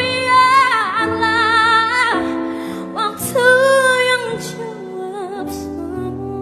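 A woman singing long held notes with a wide vibrato over sustained instrumental chords. There are two phrases, the second starting about three seconds in. After it the accompaniment carries on more softly.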